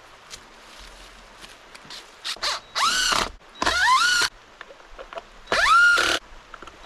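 Power drill driving fasteners in three short bursts. Each burst is a motor whine that rises in pitch and then dips and wavers as it loads up.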